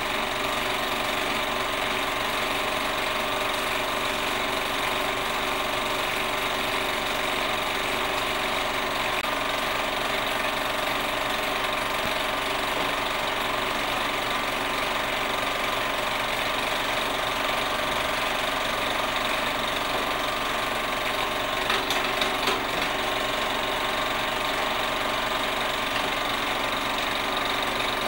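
A steady mechanical running noise with a constant hum and hiss, unchanged throughout, with a few faint clicks about three-quarters of the way through.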